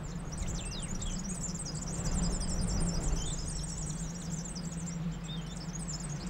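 A chorus of small birds chirping and twittering quickly and continuously, over a low steady hum.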